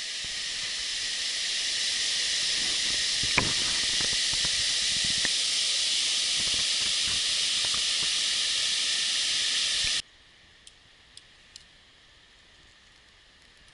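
Mountain waterfall rushing, a steady hiss of falling water that swells over the first two seconds and then cuts off suddenly about ten seconds in, leaving a few faint ticks.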